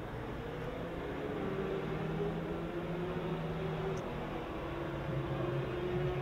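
A steady motor hum over background noise, its pitch shifting slightly about four seconds in.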